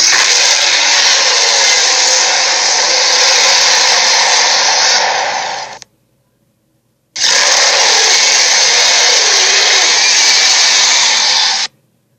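Two long, loud, harsh noisy blasts, the first about six seconds and the second about four and a half after a short gap, each starting and cutting off abruptly: sound effects made for imaginary creatures, the knightlion and griffondemon.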